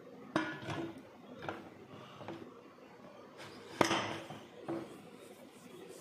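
Aluminium pressure cooker lid being fitted and closed on the pot: a handful of sharp metal clinks and knocks, the loudest about four seconds in as the lid is turned and its handle locked shut over the pot's handle.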